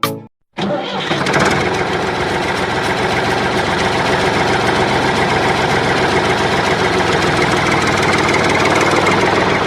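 An engine running steadily with a fast, even chug. It starts about half a second in, just after a brief snatch of music.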